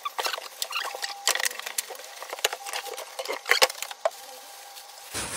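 Boxed bench grinder being pulled slowly out of its packaging: the packing scrapes and crackles in quick irregular clicks, with faint squeaks.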